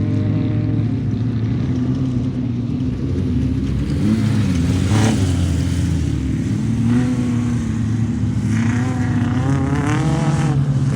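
Off-road race vehicle engines running and revving, with pitches rising and falling. A brief louder surge comes about five seconds in, and a rev climbs and drops back near the end.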